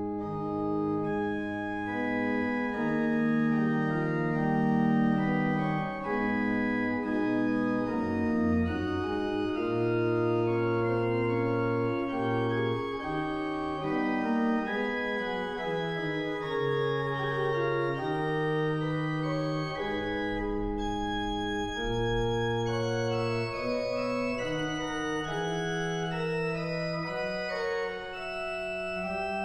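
Organ playing slow, held chords, the bass notes changing every second or two.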